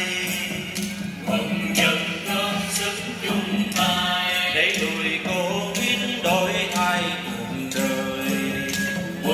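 Vietnamese folk song (dân ca) sung by several voices in turn and together over a steady held instrumental tone, with sharp clicks from small hand percussion struck now and then.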